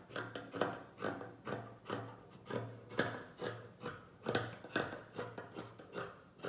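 Scissors cutting across a cotton t-shirt, snipping steadily at about two cuts a second.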